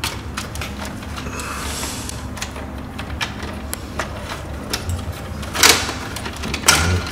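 Electrical wires and a pair of pliers being handled inside a breaker panel: scattered clicks and rattles, with two louder scrapes near the end, over a steady low hum.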